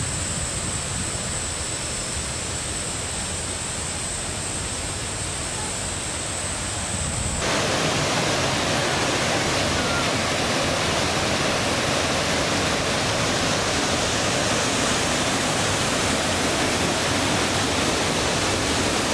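For the first seven seconds or so, a softer steady outdoor hiss with a thin, steady high-pitched tone over it. Then, abruptly, the loud, even rush of water pouring over a waterfall, Salto Capioví.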